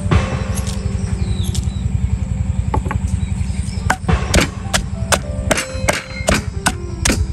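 Cleaver chopping on a wooden cutting board: a run of sharp chops, about two to three a second, starting about four seconds in, over a steady low rumble.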